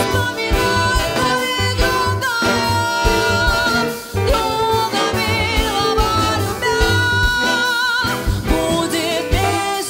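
Jazz ensemble playing an arrangement of a Russian folk song: a sustained melody line with vibrato over walking double bass, drums and piano.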